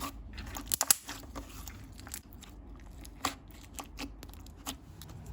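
Thick, glossy slime being squished and pressed by hand, giving irregular sticky clicks and pops from trapped air, with a few louder pops about a second in and just after three seconds.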